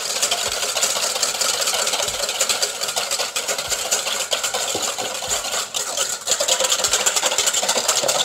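Wire balloon whisk beating fast against a stainless steel bowl, a continuous metallic clatter, a little louder in the last couple of seconds. Oil is being drizzled in and whisked to emulsify a vinaigrette.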